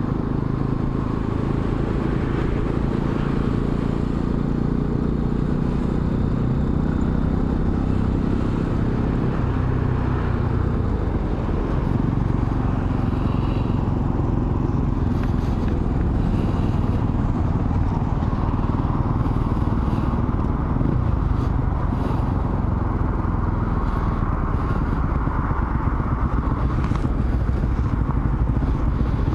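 Motorcycle engine running under way, with wind noise over the microphone; the engine note changes pitch about seven to ten seconds in as the speed changes.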